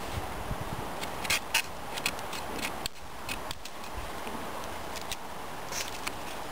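Scandi-ground O1 carbon-steel knife blade carving a notch into a thin stick: irregular short, sharp cutting clicks as the edge bites into the wood, bunched between about one and four seconds in with one more near the end, over a steady background hiss.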